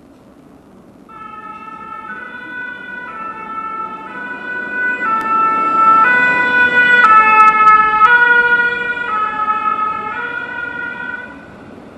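French fire brigade (sapeurs-pompiers) van's two-tone siren, alternating between two notes about once a second. It grows louder as the van approaches and passes, then fades as it drives away, over the noise of the engine and tyres.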